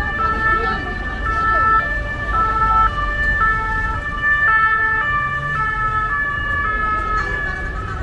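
Emergency vehicle's two-tone siren, switching between a higher and a lower note about every half second, over low traffic rumble.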